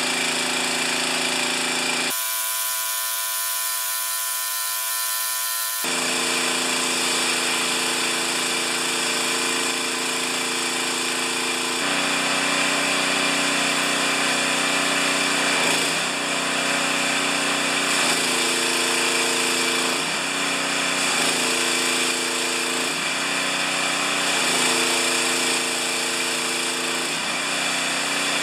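Gasoline engine of a 2,700 PSI BE pressure washer running with its pump under load, now running well after clearing a backfire. Its pitch drops and recovers several times in the second half, and for a few seconds early on the low engine sound gives way to a strong hiss.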